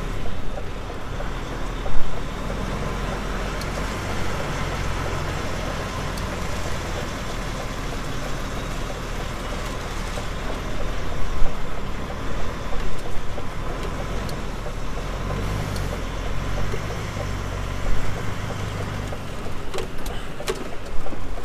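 Lorry's diesel engine running low and steady as the truck is slowly manoeuvred into a parking spot, with a few louder knocks and clunks, the sharpest about two seconds in.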